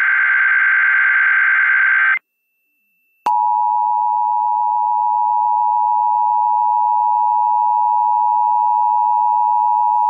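An Emergency Alert System SAME header data burst, a dense chatter of digital tones, cuts off about two seconds in. After about a second of silence, the EAS two-tone attention signal (853 and 960 Hz) comes on with a click and holds steady and loud, announcing a Required Monthly Test.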